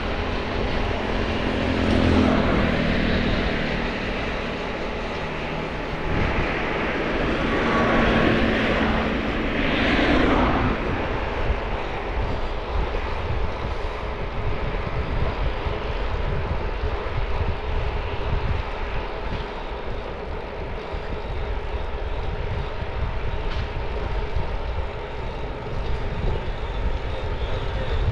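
Steady rush of wind buffeting the microphone, mixed with tyre noise, on an e-bike riding at about 25 km/h on a paved road. A louder swell with a low hum comes about six to ten seconds in.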